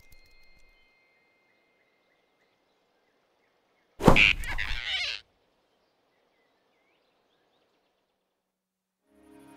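A sudden loud whoosh-and-hit sound effect about four seconds in, lasting just over a second, strongest at its start.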